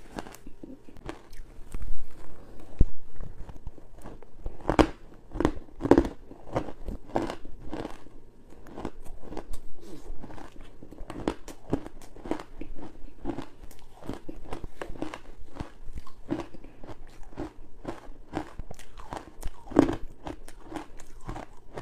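Bites into freezer frost, the squeaky kind, giving a steady run of crisp crunches, about two a second. Louder bites stand out about two seconds in, around five to six seconds, and near the end.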